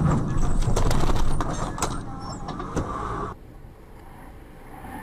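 Road traffic and engine noise heard from a car, with several sharp knocks in the first few seconds, then an abrupt drop to quieter road noise a little over three seconds in.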